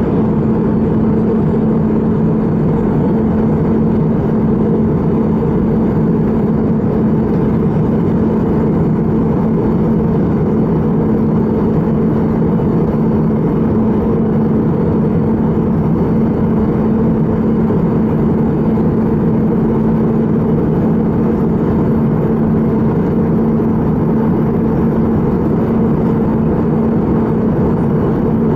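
Airbus A320 cabin noise in flight, heard inside the cabin: the steady rush of jet engines and airflow with a constant hum running through it.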